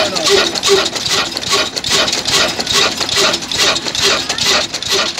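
Old black single-cylinder diesel engine with heavy flywheels running steadily under load driving a chakki flour mill, its exhaust beating evenly at about three beats a second.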